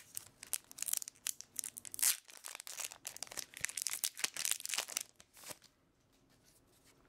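Foil wrapper of a Magic: The Gathering booster pack being torn open and crinkled in the hands: a quick run of crackles and rips that stops about five and a half seconds in.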